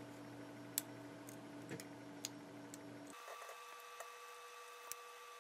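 Faint, scattered small clicks of an electric toothbrush's motor and circuit board being handled and pressed together by hand, over a low steady hum that changes pitch about three seconds in.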